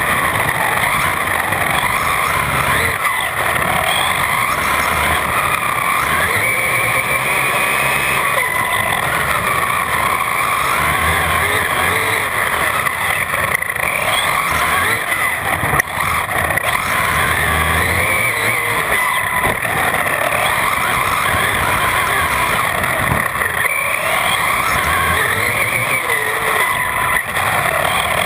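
On-board sound of an electric RC car at speed on asphalt: the brushless motor and drivetrain whine, rising and falling in pitch as the throttle is worked, over a steady rush of tyre noise.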